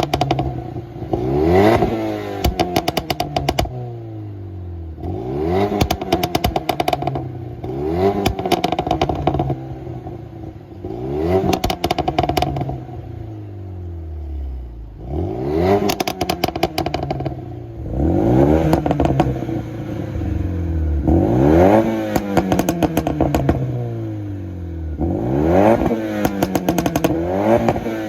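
Remapped Renault Mégane II GT engine revved hard about ten times, the pitch climbing then dropping. Each time the revs fall, a rapid string of pops and crackles comes from the exhaust, set off by the pops-and-bangs remap.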